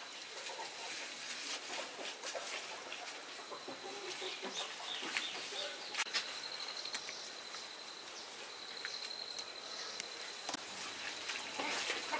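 Chickens clucking, alongside a steady high-pitched tone that pulses in two stretches around the middle, and scattered light clicks and knocks.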